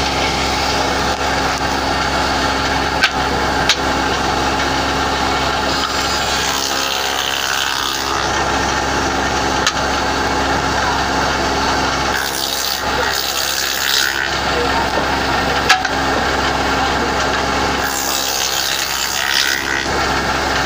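A spindle moulder's motor running steadily, with two stretches of wood being worked against it, one about twelve seconds in and one near the end, and a few sharp knocks.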